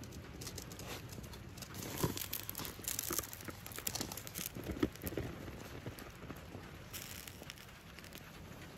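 Lost-foam aluminium pour: molten aluminium pouring onto a buried foam pattern, which burns and vaporizes with irregular crackling and sharp pops, thickest through the middle.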